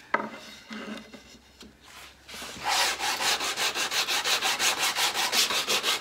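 80-grit sandpaper rubbed by hand along the edge of a reclaimed elm strip, easing the sharp corner left by the saw. After a light knock at the start and a quiet stretch, it sets in about two and a half seconds in as quick, even back-and-forth strokes, several a second.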